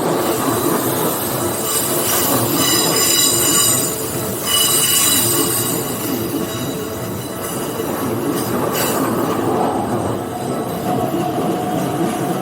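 Keikyu 600 series electric train passing close by over a level crossing: loud steady wheel-on-rail noise, with high squealing tones over the first few seconds and a faint rising whine near the end.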